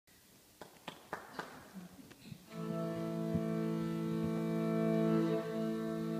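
Morin khuur (Mongolian horsehead fiddle) bowed on both strings together, one steady held drone that begins about two and a half seconds in, after a few faint knocks.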